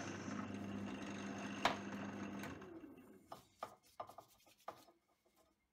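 Bench drill press running as the bit cuts 6 mm holes through aluminium plate, with one sharp click about a second and a half in. The motor then winds down and a few light knocks follow as the plate is handled on the table.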